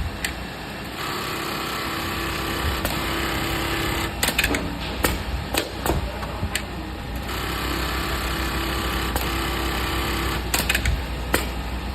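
Computerized pattern sewing machine (a Kingmax GT210E-2210, a Juki AMS-210E equivalent) stitching in two steady runs of about three seconds each. Between and after the runs come a series of sharp clicks and knocks from the machine.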